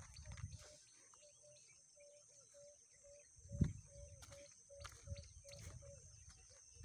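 Countryside insects give a steady high drone, while a short low call repeats about three times a second. In the second half come dull thumps of walking on the muddy road.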